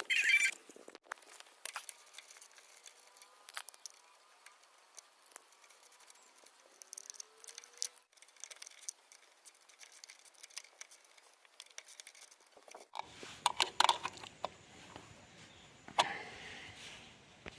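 Light metallic clicks and rattles of hand tools and bolts being worked loose from a motorcycle's front sprocket cover. Louder clanks and handling noise come in the last few seconds.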